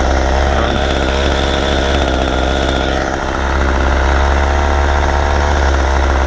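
Bucket truck engine running steadily, with a brief dip in level about three seconds in.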